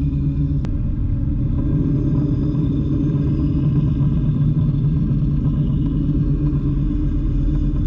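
Belt sander running steadily, grinding the steel edge of an old slasher blade.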